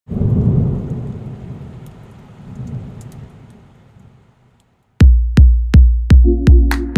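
A deep thunder-like rumble that fades away over about four seconds, then electronic music kicks in: a heavy, evenly spaced bass-drum beat at a little under three beats a second, with a held synth chord joining about a second later.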